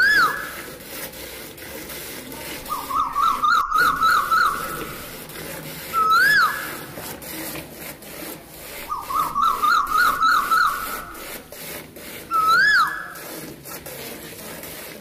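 Cow being milked by hand, streams of milk squirting into a bucket of frothy milk with a quick rubbing rhythm. Over it a bird calls loudly in a repeating cycle: one whistled note that rises and falls, then a fast run of warbled notes, starting over about every six seconds.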